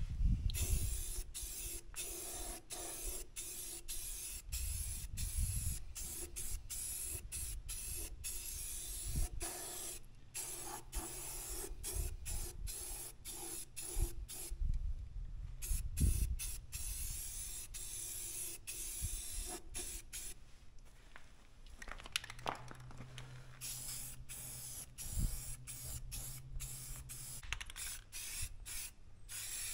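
Aerosol spray paint can hissing as paint is sprayed onto a steel excavator ripper, in spurts broken by many brief pauses. Low rumbles and thumps come and go underneath.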